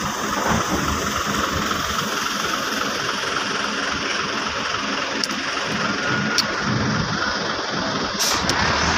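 Truck engines running as trucks drive onto a ferry over its steel loading ramp, a steady engine noise with a few faint clicks in the second half.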